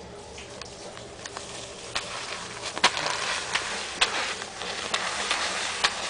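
A paper dollar bill crinkling and rustling with irregular sharp crackles as a hand tugs it along the carpet against a kitten's paw; it starts about two seconds in.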